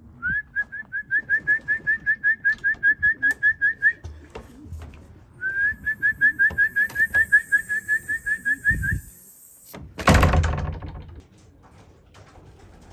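A person whistling a fast string of short, rising notes, about five a second, in two runs of about four seconds each, calling racing pigeons to come down into the loft. A loud thump follows about ten seconds in.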